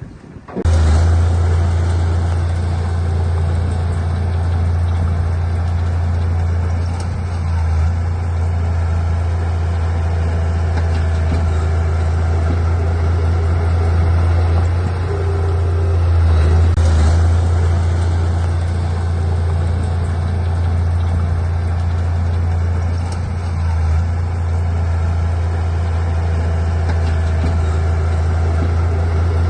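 Heavy diesel engine of earthmoving equipment running steadily with a low drone, cutting in abruptly about a second in.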